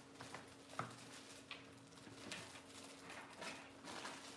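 Faint handling sounds of bags being taken down from hooks on a slatwall display: a few soft clicks and rustles, the sharpest a little under a second in, over a steady low hum.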